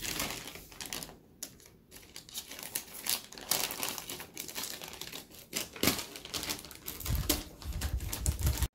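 Thin plastic wrapping on a crib mattress crinkling and rustling as it is handled and cut open with scissors, with irregular sharp snips and clicks. The sound cuts off suddenly near the end.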